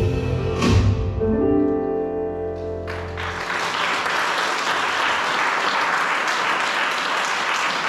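A live band's final held chord with piano and bass rings out and fades. About three seconds in, the audience breaks into applause that carries on to the end.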